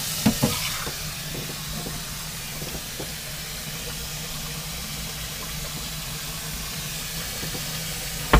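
Kitchen faucet running steadily into a stainless steel sink, a constant hiss with a low hum beneath it. A few light knocks of cast iron skillets being handled come in the first seconds, and a louder knock right at the end.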